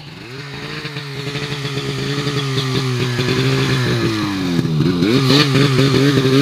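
Polaris snowmobile engine running and growing louder as the sled comes up close, its pitch fairly steady, dipping briefly between four and five seconds in, then wavering with the throttle.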